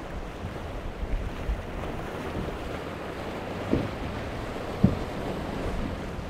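Quad Mercury 300 outboards of a Prowler 42 catamaran running at speed through rough inlet chop, under a steady rush of water and spray. Two sharp thumps come a little over a second apart in the middle as the hulls slam through waves, with wind buffeting the microphone.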